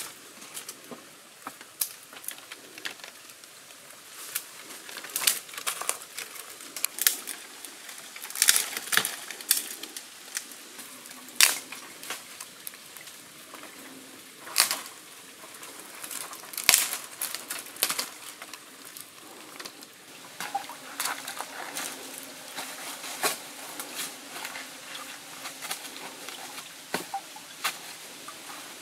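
Dry twigs and vines snapping and cracking by hand amid rustling brush: irregular sharp cracks, a few of them loud, over a light hiss.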